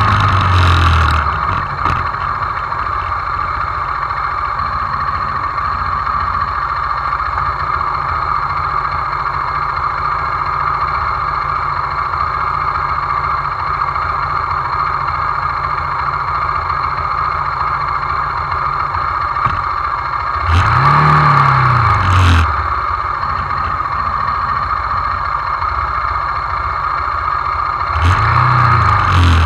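Hyosung GD250N's single-cylinder engine winding down as the motorcycle slows to a stop, then idling steadily. The throttle is blipped briefly twice, about 21 seconds in and again near the end, each time a quick rise and fall in pitch.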